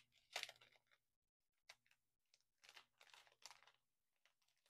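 Faint, scattered crinkling of small plastic bags of diamond painting drills being handled and shuffled.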